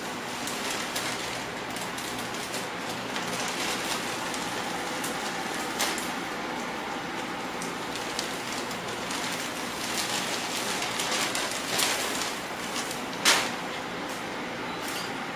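Plastic bags crinkling and rustling as they are pulled out of a tote bag and bundled in the arms, in irregular crackles over a steady hiss, with the sharpest crackle near the end.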